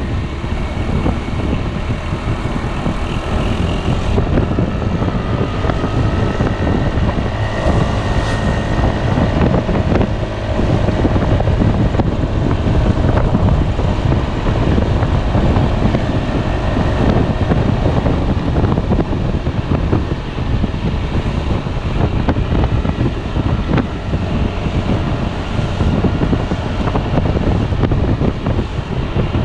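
Piaggio Beverly 300 scooter's single-cylinder engine running while riding, with heavy wind buffeting on the microphone.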